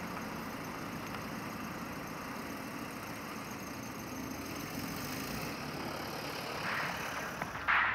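Steady street traffic noise with a car passing close by around the middle. Near the end, loud sharp hits begin.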